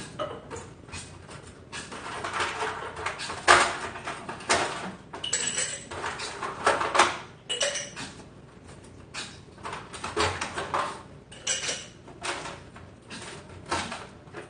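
Irregular clinks and knocks of a drinking glass and other kitchen items being handled and set down, some strikes leaving a short glassy ring.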